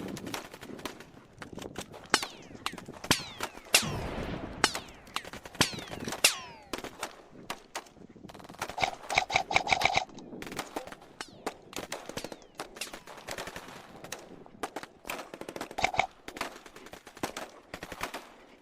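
Airsoft replicas firing during a skirmish: scattered single shots and short strings of sharp clicks. There is a sustained full-auto burst about nine seconds in and a shorter burst near the end.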